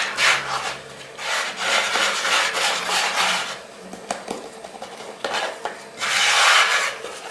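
Hands rubbing and sweeping across a floured wooden pastry board while pressing a ball of dough flat: a dry, scraping hiss in several long strokes.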